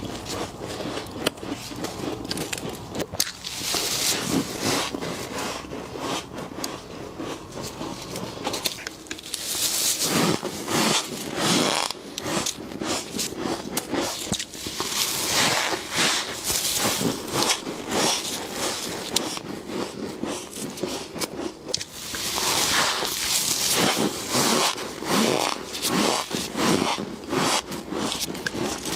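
Freezer frost being scraped up and bitten, a dense, continuous run of crisp crunching and scraping.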